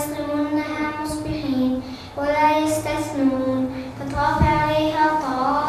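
A high-pitched voice chanting Qur'an recitation in melodic tajweed style, drawing out long held notes that glide gently up and down, with short breaks between phrases.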